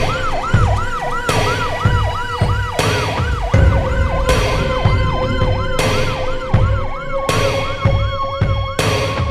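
Emergency-vehicle siren in a fast yelp, its pitch rising and falling about three times a second, over dark film music with a heavy drum hit about every second and a half.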